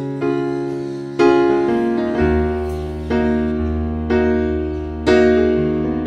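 Slow, gentle keyboard music: piano chords struck about once a second, each left to ring and fade before the next.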